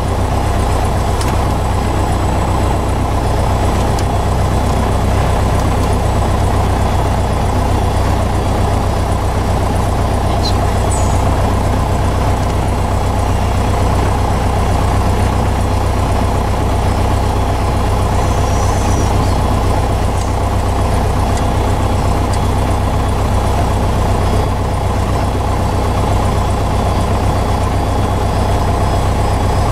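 Piper Cherokee's piston engine and propeller running steadily at low power, heard from inside the cockpit as an even, unchanging drone.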